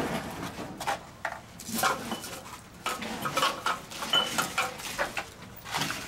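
Metal hand tools clinking and scraping on air-conditioner refrigerant piping at a wall penetration: an irregular run of sharp clicks and knocks, with a couple of brief squeaks.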